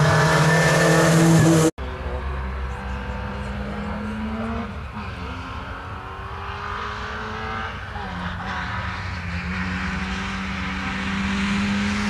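Rally car engine running hard. It cuts off abruptly about two seconds in, and another stretch of rally car engine follows, a little quieter, its pitch rising and falling as it works through the gears.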